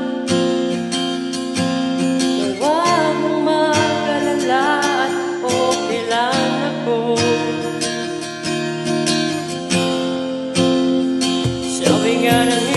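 A man singing a song into a microphone over a strummed acoustic guitar accompaniment played from a laptop, the voice and the backing track mixed together through a V8 sound card.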